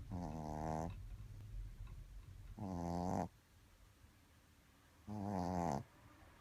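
Shih Tzu snoring while asleep: three pitched, buzzing snores about two and a half seconds apart, each lasting under a second, with a low rumbling breath between the first two.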